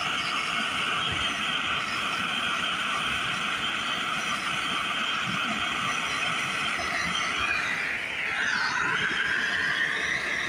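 Handheld gas torch flame hissing steadily as it heats a starter clutch seized on a small engine's crankshaft, to free it. About eight seconds in the hiss dips in pitch and then settles slightly lower.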